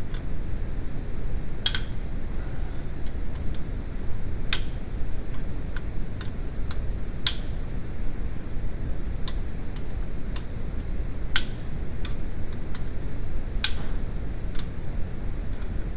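Sharp clicks, about ten of them at irregular intervals, over a steady low rumble.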